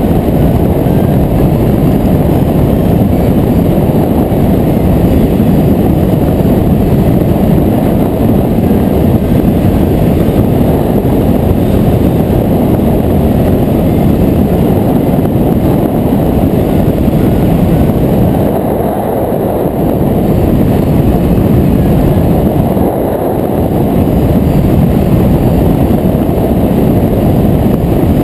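Wind from the flying speed of a hang glider in flight, buffeting the mounted camera's microphone: a loud, steady, low rushing noise that eases briefly twice about two-thirds of the way through.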